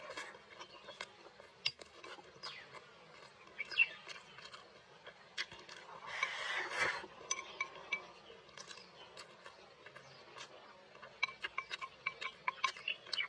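Eating sounds: wooden chopsticks clicking against a ceramic rice bowl and chewing, with a louder stretch of scraping about six seconds in as rice is pushed from the bowl's rim into the mouth. The clicks come quickly near the end.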